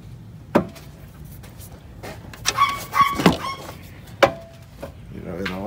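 Hand tools clinking on metal under an engine bay during engine removal: two sharp clinks with a brief ring, about half a second in and about four seconds in. Between them comes a burst of short pitched cries, and a wavering pitched call near the end.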